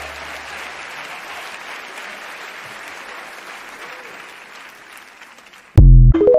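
A banquet audience applauding, fading slowly over about five seconds. Near the end it cuts abruptly to TikTok's end-screen jingle, a loud deep thump followed by a few short tones.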